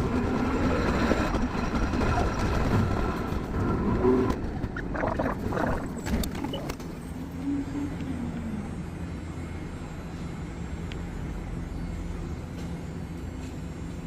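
Hankai Tramway streetcar running: a steady low rumble of wheels and motor, with a higher hum in the first few seconds that fades away, the whole sound slowly getting quieter.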